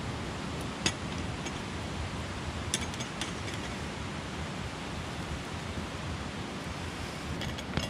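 Steady rush of a mountain stream cascading over rocks, with a few sharp clicks from the campfire and the metal pot set beside it, the loudest about a second in.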